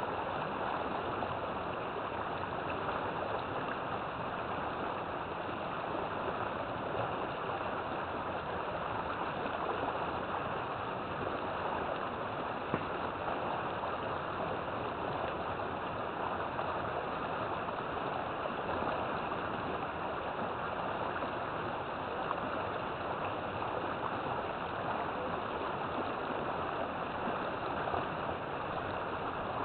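River water flowing and gurgling with a steady rush.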